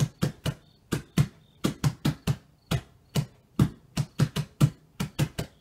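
A run of sharp taps, about three or four a second and unevenly spaced, like fingers tapping on a hard surface.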